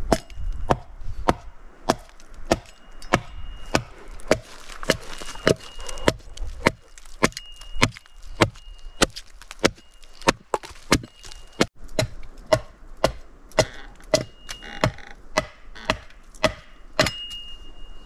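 Axe hewing the face of a split log plank stood on a stump, shaping a cutting-board blank: a steady run of sharp chopping strokes, about two a second.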